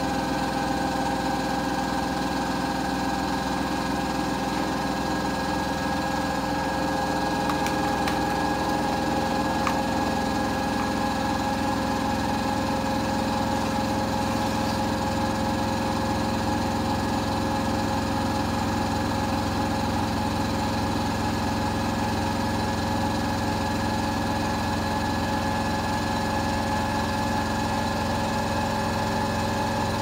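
Hotpoint WMFUG 942 washing machine running with a steady, even hum.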